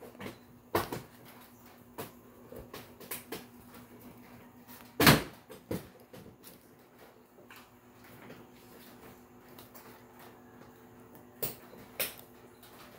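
Scattered knocks and clicks of the hearse prop's parts being handled during assembly, the loudest a single thud about five seconds in.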